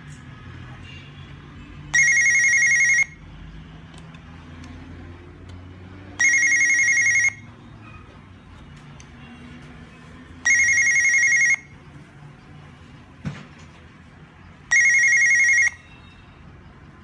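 Hikvision DS-KIS202 indoor monitor ringing for a call from the outdoor bell button: four identical electronic ring bursts of about a second each, roughly four seconds apart. A brief knock comes between the third and fourth rings.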